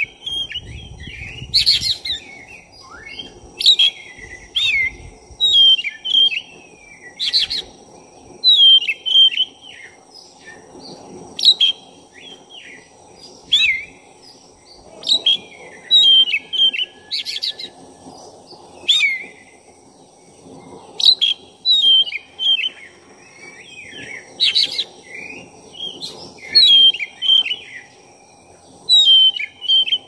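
Black-breasted Oriental magpie-robin (kacer dada hitam) singing in full song: loud whistled phrases of quick sliding notes, one every second or two, mixed with short harsh rasping notes.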